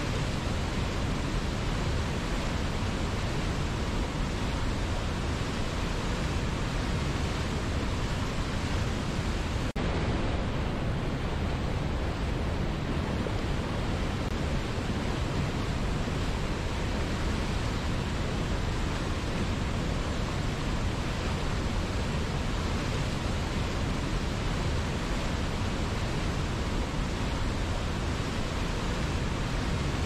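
Steady rushing of a waterfall and whitewater rapids: an even, continuous hiss of tumbling water, heaviest in the low range, with no single splashes standing out.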